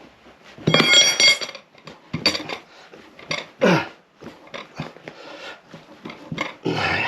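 Metal tyre levers clinking and scraping against a motorcycle wheel rim as a tyre is levered on, in a few short irregular bursts. The loudest comes about a second in, with a ringing squeal.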